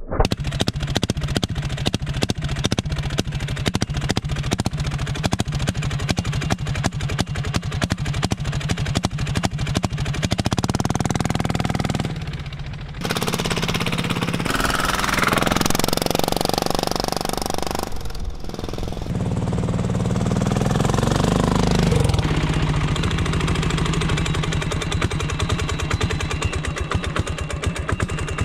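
Small diesel engine swapped into a kids' quad, running with a rapid, even knock of firing strokes. In the middle it runs harder and louder, with two brief drops, then settles back to the steady knock.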